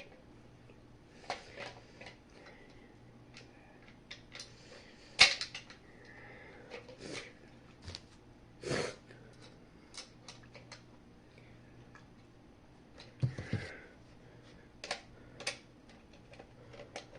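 Scattered clicks and knocks of hands handling a fire alarm horn-strobe unit as it is taken apart, the sharpest knock about five seconds in. A faint steady hum runs underneath.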